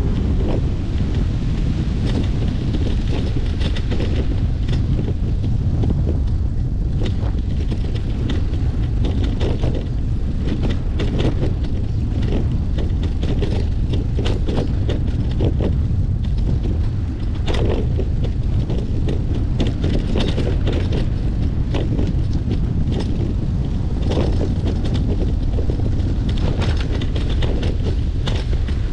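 Wind buffeting the microphone of a GoPro Hero9 mounted on a moving bicycle, a steady low rumble, with frequent small knocks and rattles throughout.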